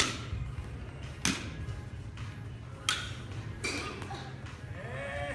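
Baseball bat hitting soft-tossed balls into a net: sharp cracks about every second and a half, some with a short ringing after the hit.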